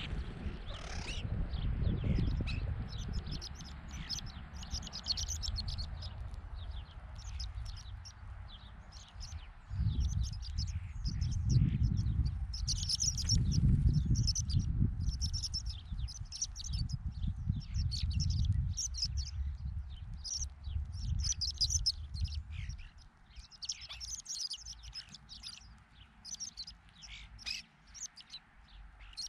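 A feeding flock of horned larks and Lapland longspurs giving many short, high calls in quick succession. Under them runs a low, uneven rumble of wind on the microphone that fades away near the end.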